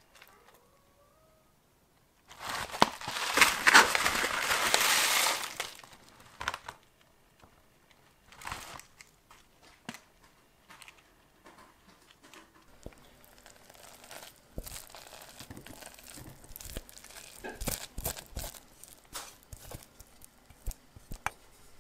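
A foil-lined instant rice pouch crinkling loudly for about three seconds, starting a couple of seconds in, followed by scattered light taps and clicks of handling.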